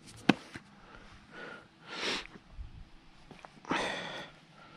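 Quiet handling of fishing tackle as a float is fitted onto a float rod's line: a sharp click near the start, then two short hissing rushes of air, the second a little longer.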